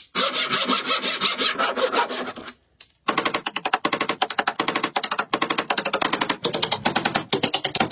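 A tool scraping against wood in rough, dense strokes. After a brief pause comes a fast, even clicking, about eight clicks a second, with a faint hum under it.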